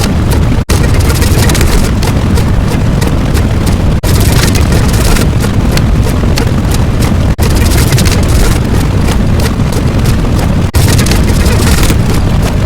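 Loud, dense rumbling noise sound effect, heaviest in the low end, broken by brief dropouts about every three and a half seconds, as if the same clip were repeated back to back.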